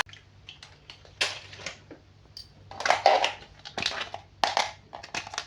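Plastic toy packaging being handled: irregular crinkles and clicks, a few louder ones about a second in, around three seconds in and near the end.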